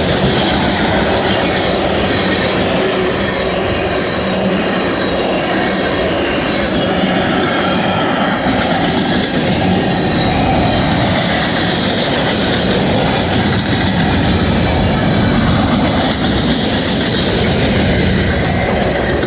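Freight train rolling past at close range: a steady, loud rumble of steel wheels on rail with clickety-clack over the rail joints and faint high-pitched wheel squeal at times.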